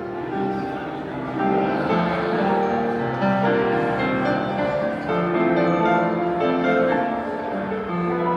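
Gentle instrumental piano music.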